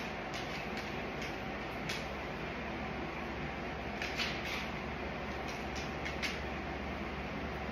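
Steady background hiss and hum, with a few short scratchy strokes and light taps of a paintbrush on paper, a cluster of them about four seconds in and again around six seconds.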